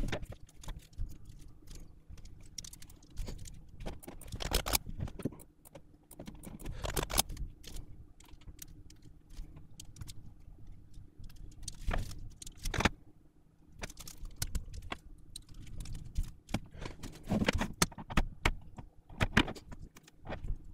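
Irregular small clicks, taps and rattles of tools and small plastic and metal controller parts being handled on a repair bench, with a faint steady hum underneath.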